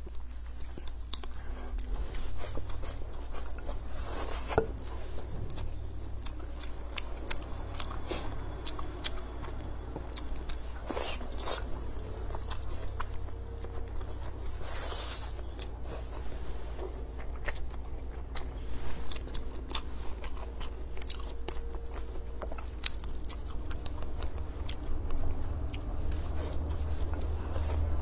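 Close-miked chewing and biting of a mouthful of braised pork belly with preserved mustard greens and rice, with many short sharp clicks and taps, over a steady low hum.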